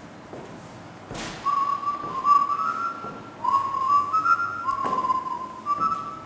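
A person whistling a tune: a string of held notes stepping up and down, beginning about a second and a half in. Two short knocks, one just before the whistling starts and one about midway.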